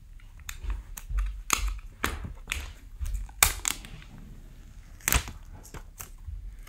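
Clear plastic shrink wrap being torn and peeled off an iPhone 12 box, heard as an irregular series of sharp crinkles and crackles.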